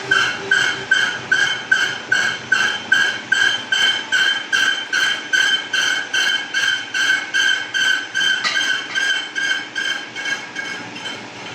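A workshop metalworking machine, likely a lathe, giving an even, rhythmic ringing clack about three times a second, each stroke carrying a metallic tone. It grows a little fainter near the end.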